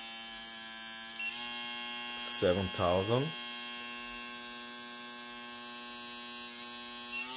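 Electric foil shaver's motor running with a steady hum, its pitch stepping up slightly about a second in and again near the end as the speed is raised a notch at a time from its lowest setting of 6,500 RPM.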